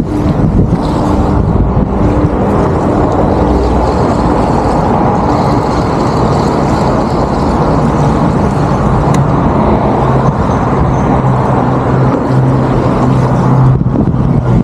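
Steady rumble of road traffic on the bridge deck overhead, with a low hum that comes and goes, strongest in the second half.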